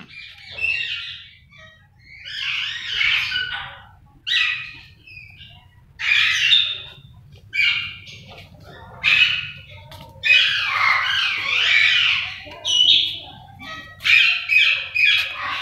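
Birds squawking and chirping in repeated harsh bursts of a second or so, one after another, over a faint low steady rumble.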